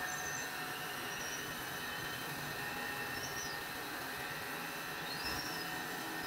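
Crankshaft grinding machine running with a steady whirring hiss as its wheel grinds a tractor crankshaft turning between the chucks, with a few faint, short high squeals.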